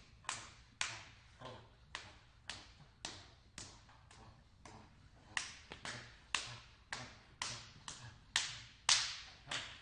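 Open-handed slaps on a person's bare head and body, about two a second in a steady rhythm, getting harder about five seconds in.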